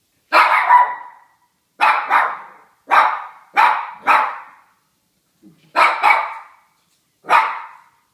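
A dog barking: about ten sharp barks, several in quick pairs, with short pauses between them.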